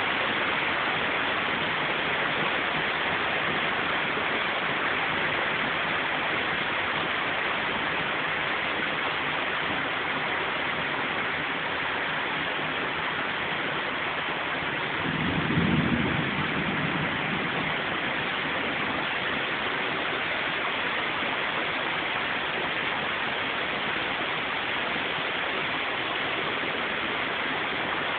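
Heavy rain pouring steadily, an even dense hiss. About halfway through there is a brief low rumble.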